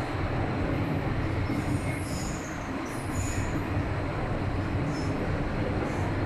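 MTR Kwun Tong line M-Train running through a tunnel, heard from inside the passenger car: a steady rumble, with a few brief high-pitched squeals about two to three seconds in and again near five seconds.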